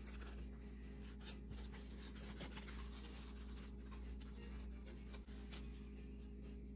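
Faint rubbing and crinkling of painter's tape being pressed and smoothed along the edge of a foam model-jet wing, a scatter of small scrapes and ticks over a steady low hum.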